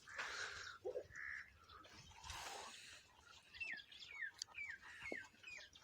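Faint bird calls: a run of short chirps, each falling in pitch, about two a second, starting past the middle, with scattered faint rustles before them.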